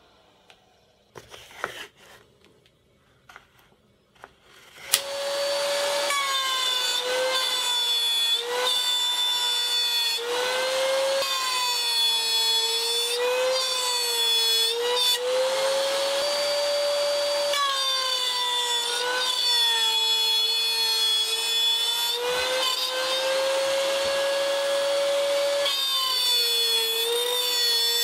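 A few quiet handling knocks, then a router in a router table switches on about five seconds in. It runs with a high whine that sags and recovers again and again as wood is fed past the bit and cut, over a steady rush of air.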